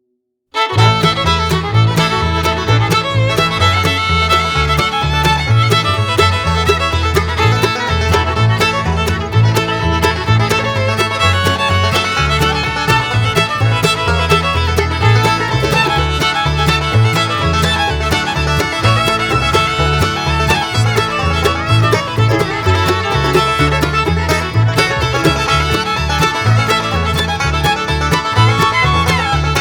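Upbeat background music in a bluegrass or country style, with fiddle, banjo and guitar over a steady beat, starting about half a second in.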